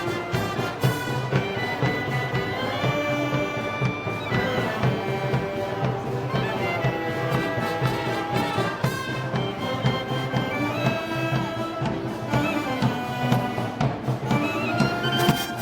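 A brass band playing Moros y Cristianos festival music, with trumpets and trombones holding long notes over a steady low accompaniment.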